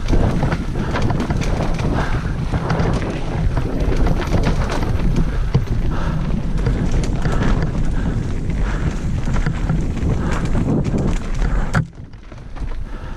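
Mountain bike rattling and clattering over wet roots and rocks at speed on a steep descent, a dense run of knocks and chain and frame rattle, with wind rumbling on the microphone. Near the end the clatter drops away for about a second before it starts again.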